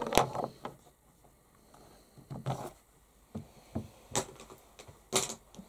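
Plastic lip gloss tubes clicking and clattering as they are picked up and tossed aside, in several separate short knocks with quiet gaps between, the loudest at the start and about five seconds in.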